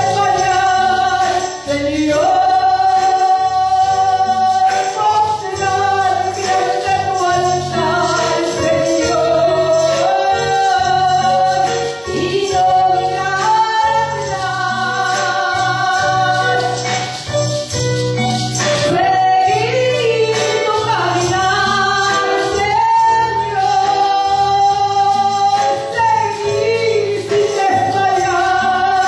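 A woman singing a Christian worship song over musical accompaniment, the melody moving through long held notes.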